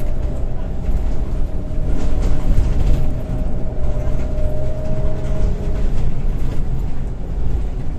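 Scania L94UB Wright Solar single-deck bus heard from inside the passenger saloon while on the move: its rear-mounted nine-litre five-cylinder diesel and drivetrain running steadily with a deep rumble. A thin whine sits over the rumble and fades out a little over halfway through.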